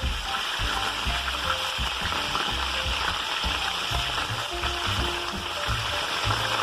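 Chicken frying in hot oil: a steady sizzle.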